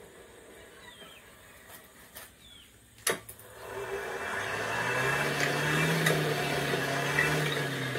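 Hand-crank forge blower being cranked up: a rushing blast of air with a low whine that rises in pitch, holds and begins to drop near the end, blowing air up through the burning paper and charcoal in the coal forge's fire pot. A sharp click comes about three seconds in, just before the blower starts.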